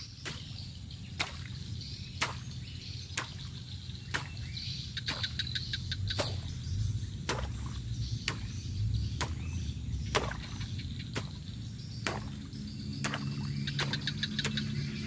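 Sharp blows struck about once a second in a steady rhythm, over a low steady rumble.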